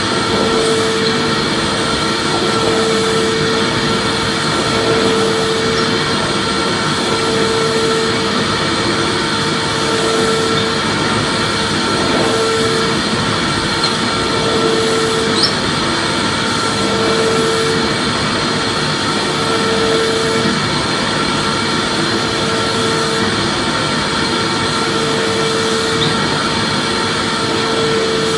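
Vacuum cleaner running steadily, a continuous rushing motor noise with a hum that swells and fades about every two and a half seconds.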